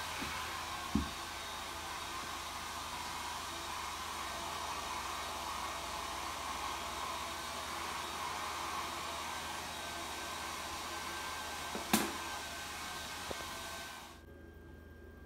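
Steady blowing hiss of an electric blower, like a hair dryer or fan, that cuts off about 14 s in. Two short sharp clicks sound over it, about a second in and near the end.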